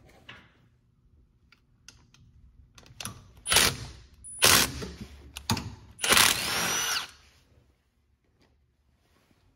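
Cordless power driver spinning bolts out of an ATV engine side cover: a few short bursts about a second apart starting about three seconds in, then one longer run of about a second with a whine, among small metal clicks.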